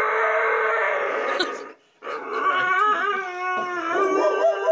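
Husky howling and 'talking' in two long drawn-out calls, the second wavering up and down in pitch, with a short break between them about two seconds in.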